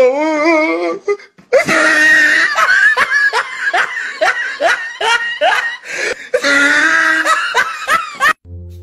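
Loud laughter in quick, repeated rising bursts, with music under it. Near the end it cuts off abruptly and a different piece of music starts.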